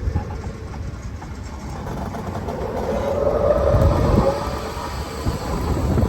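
Wind buffeting the microphone over the low rumble of an electric golf cart (E-Z-GO RXV Elite) driving along, swelling to its loudest about four seconds in.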